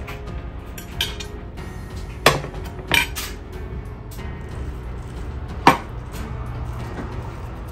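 Metal serving spoon clinking against a glass casserole dish and a serving tray while casserole is scooped out: a few sharp clinks, the two loudest about two seconds and nearly six seconds in, over a low steady hum.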